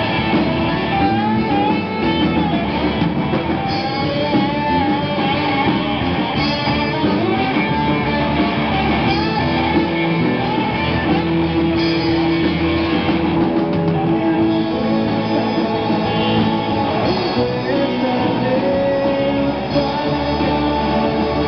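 Live rock band playing electric guitars and a drum kit, loud and continuous, with cymbal crashes every few seconds.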